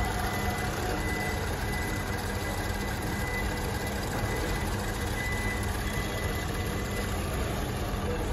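Toyota hybrid system demonstration model running its reverse-mode sequence: a steady mechanical hum with a faint high tone that fades near the end.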